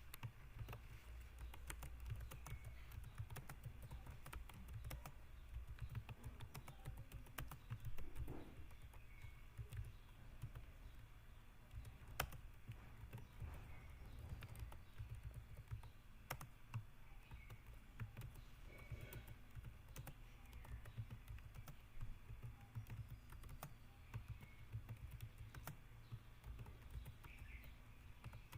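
Fast, continuous typing on a computer keyboard: an uneven stream of key clicks, several a second, with a few louder keystrokes standing out.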